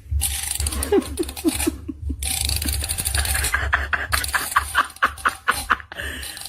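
A person laughing in short, rapidly repeated bursts, over a steady low rumble and hiss.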